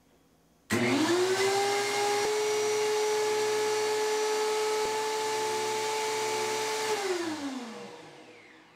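DeWalt 735 thickness planer switched on with no wood in it: the motor and cutterhead spin up quickly and run at speed with a steady whine and rush of air. Two faint clicks come mid-run as the feed-speed shifter is moved. The planer is then switched off and runs down, its whine falling in pitch and fading away.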